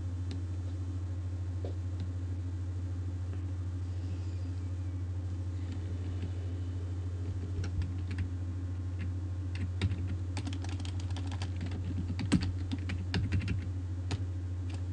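Typing on a computer keyboard. There are only a few keystrokes in the first half, then a run of quick key clicks in the second half, over a steady low hum.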